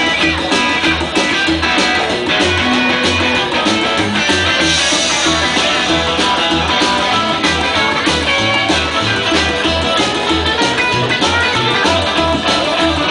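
Live rockabilly trio playing an instrumental passage: upright bass plucking a steady beat a few notes a second under strummed acoustic rhythm guitar and electric lead guitar.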